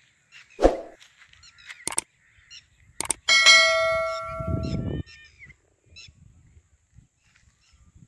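Subscribe-button animation sound effect: a few sharp mouse clicks, then a bell ding that rings out for about a second and a half. A loud thump comes about half a second in, and faint birds chirp in the background.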